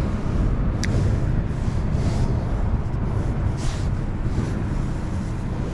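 Wind buffeting the microphone outdoors as a steady low rumble, with one sharp click about a second in.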